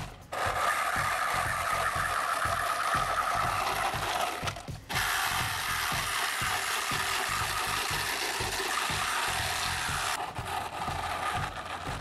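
Electric motor and belt drive of a homemade remote-control mini car whirring as it drives, dropping out briefly twice.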